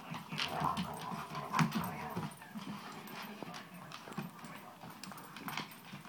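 Siberian husky's claws clicking and scrabbling irregularly on a hardwood floor as it spins, chasing its tail.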